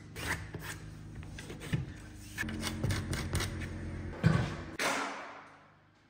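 A wooden trim board being handled against a drywall wall: rubbing and scraping with scattered light taps, then two louder sharp knocks a little after four seconds in and near five seconds in.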